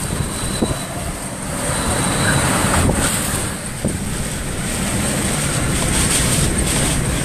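Hurricane eyewall wind gusting, blowing as a loud, steady rush of noise over the microphone that swells about two seconds in and stays strong.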